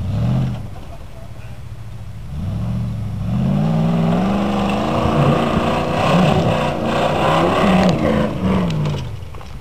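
Off-road Land Rover's engine labouring and revving as it climbs a steep, loose dirt bank, the revs swinging up and down repeatedly. It is quieter for the first couple of seconds, then louder and busier as the throttle is worked up the slope.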